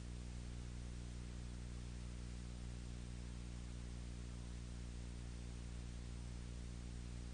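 Steady hiss over a low, even electrical hum, with no other sound: the empty soundtrack of a silent film.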